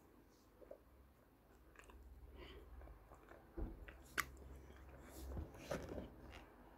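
Quiet chewing and biting of ayilo (edible calabash clay) paste and crumbs: a string of short, separate crunches and wet mouth clicks, the sharpest about four seconds in.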